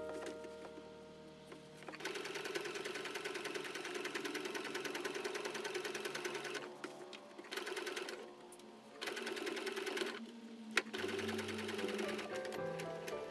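Electric home sewing machine stitching a seam through cotton fabric in fast, even runs, starting about two seconds in and stopping and restarting several times as the fabric is turned and guided.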